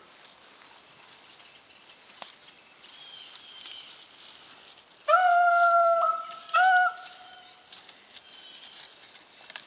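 A rabbit-hunting dog baying twice: a long, steady-pitched bay about five seconds in and a short one just after, as the dogs work the brush pile. Faint small-bird chirps sound between them.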